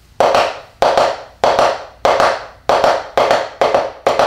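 Wooden taiko bachi striking a taiko practice pad, playing a two-bar pattern of doubled hits (doro). Each stroke is a sharp tap with a short ring, and the strokes come closer together in the last second or so.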